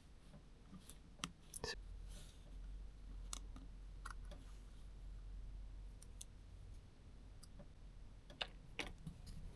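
Faint, scattered clicks and taps of small plastic camera-lens parts being handled and prodded with a zip tie, a few irregular clicks spread through, with two sharper ones near the end, over a faint low hum.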